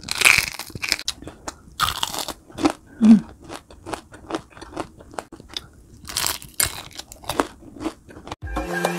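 Crunching bites into crispy fried food, coming in loud, irregular crackly chews; music comes in near the end.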